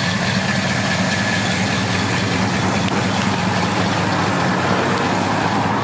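1968 Pontiac GTO's V8 engine idling steadily.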